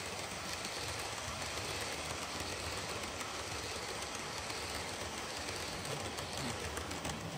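OO gauge model train, a steam locomotive hauling a long rake of coaches, running along the layout track with a steady rolling noise.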